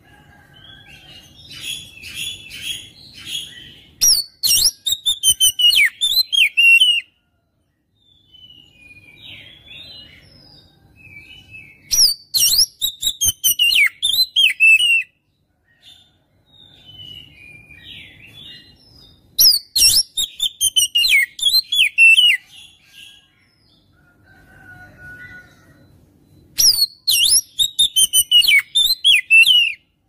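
Oriental magpie-robin (kacer) singing in a repeating cycle, four times over: a soft twittering phrase, then a loud burst of rapid, sharp notes that slide downward in pitch.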